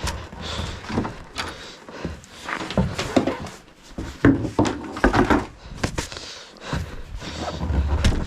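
Irregular knocks, clicks and rustling from parts being handled, with a low rumble underneath.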